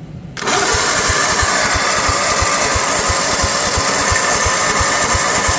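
Tecumseh engine on a walk-behind zero-turn mower being cranked over by its electric starter. It starts suddenly about half a second in and runs steadily, with even thumps about four times a second.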